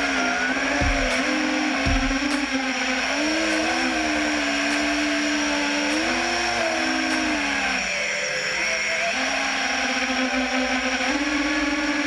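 FPV quadcopter's brushless motors whining, the pitch rising and falling as the throttle changes, heard through the onboard camera's microphone.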